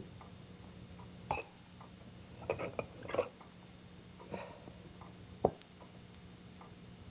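China teacups and saucers clinking and knocking as they are handled and set down, in several light separate knocks with a small cluster about three seconds in and the sharpest about five and a half seconds in.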